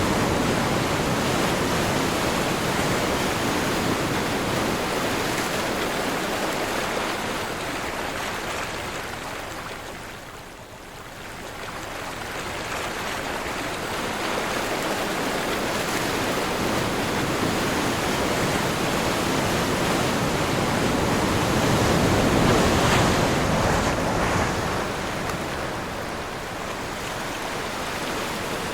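Ocean surf with wind: waves breaking and washing in as a continuous rushing noise that swells and ebbs. There is a brief lull about ten seconds in, then it builds again to a peak about two-thirds of the way through.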